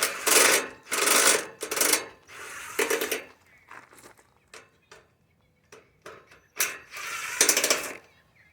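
Sheet-metal panels of an air conditioner being handled and pulled loose, giving rough metallic clattering and scraping. There are four loud bursts in the first three seconds, a few light clicks, then two more bursts about six and a half seconds in.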